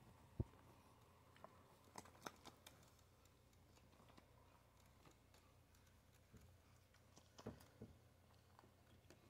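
Near silence: room tone with a faint low hum and a few scattered soft clicks, the sharpest a brief knock about half a second in.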